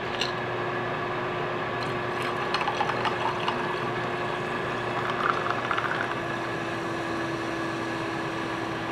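Peach water poured in a steady stream from a plastic bottle into a tall glass over ice, with a steady hum underneath.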